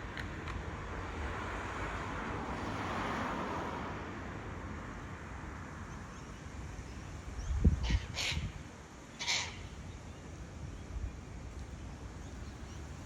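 Sulphur-crested cockatoos giving a few short, harsh screeches about eight and nine seconds in, over a steady background hiss.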